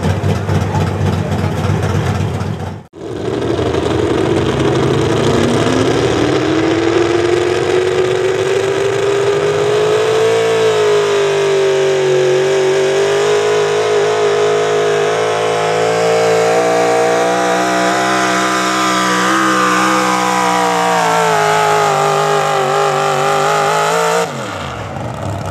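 Big-block V8 pulling truck at full throttle dragging a weight-transfer sled. Its revs climb over several seconds, then hold high with a wavering pitch, and drop sharply near the end as the driver lets off.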